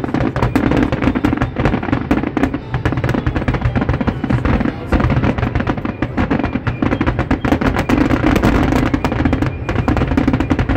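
Fireworks going off in quick succession, a dense run of bangs and crackles, with music playing underneath.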